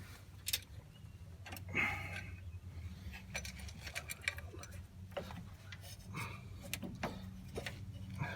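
Light metallic clicks and clinks of spring washers and the strut top plate being worked over the mounting studs, irregular and scattered, over a steady low hum.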